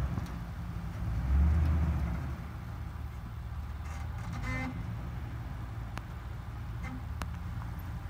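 Pickup truck engine running, revving up briefly about a second in, then settling back to a steady low rumble.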